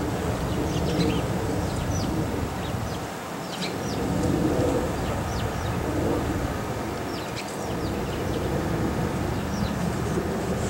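Metra EMD F40PH diesel locomotive working under throttle, its exhaust smoking, as it moves a bi-level commuter train away: a steady low rumble that eases briefly twice. Birds chirp over it throughout.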